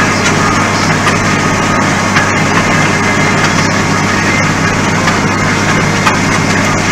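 Tractor engine running at a steady pitch as it pulls a disc harrow through loose dirt.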